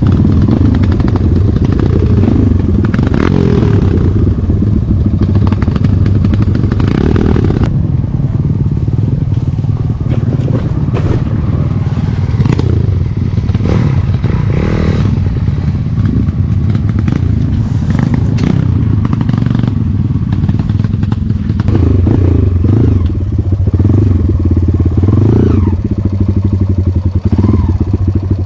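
Enduro dirt bike engine running and revving up and down, with clattering knocks scattered through.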